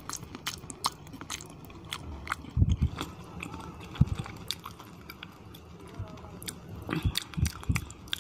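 Close-miked chewing and wet mouth smacking of a person eating curry and khichuri by hand, with many sharp lip-smacks. A few dull low thumps stand out as the loudest sounds, about two and a half seconds in, at four seconds, and again near the end.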